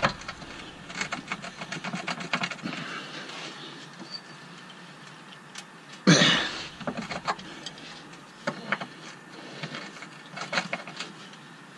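Breaker bar and socket clicking and clanking on a rusted rear subframe bushing bolt as the socket is fitted and the bar is heaved on, with the bolt not yet breaking loose. A louder, short burst of noise comes about six seconds in.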